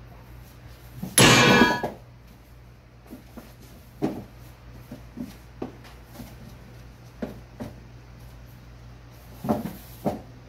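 Two cats play-fighting around a cardboard box. A loud scuffling burst comes about a second in, then a scatter of short knocks and thumps from paws and bodies on the wooden floor and the box.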